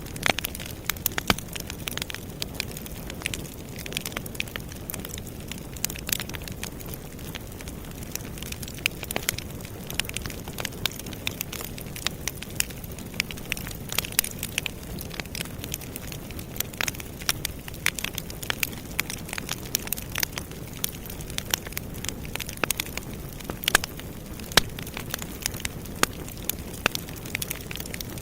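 Campfire burning: wood crackling with frequent sharp, irregular pops and snaps over a low, steady rush of the flames.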